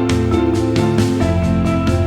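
Soft instrumental music: plucked notes sounding at a steady pace over sustained tones.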